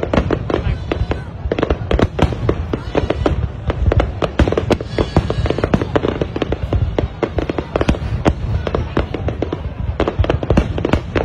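Aerial fireworks shells bursting in a dense barrage: rapid, overlapping bangs and crackles several times a second over a constant low rumble.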